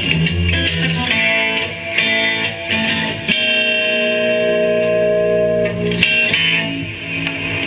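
Guitar-led song played back through a homemade single-ended ultralinear tube amplifier with a 6973 output tube and 6CG7 driver, heard from its loudspeaker through the camera's microphone. A chord rings out and is held for a few seconds in the middle.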